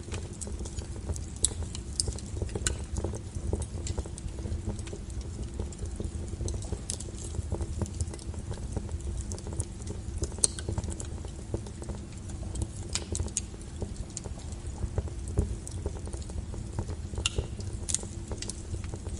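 Wood fire burning: a steady low rumble of flames with irregular sharp crackles and pops from the burning firewood, a few louder snaps scattered through.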